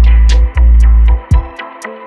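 Background music with deep, sustained bass notes and a beat of sharp percussive ticks; the bass drops out about a second and a half in.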